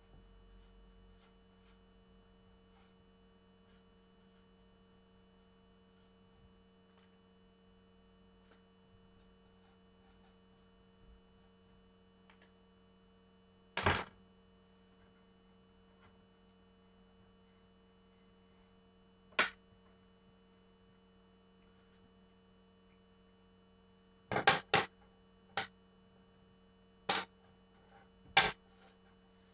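Steady low electrical hum, broken by seven sharp knocks: one about halfway, another some five seconds later, and a cluster of five near the end.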